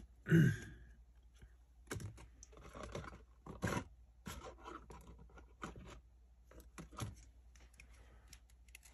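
Rummaging through plastic card top loaders and supplies: scattered clicks, scrapes and rustles of hard plastic being handled and shuffled. A short breathy vocal sound comes near the start.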